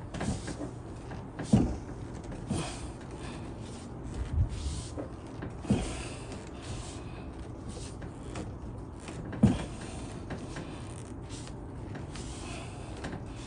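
Intermittent knocks, clunks and rubbing from parts being handled inside a car's rear door during glass replacement. About half a dozen separate knocks, two of them louder.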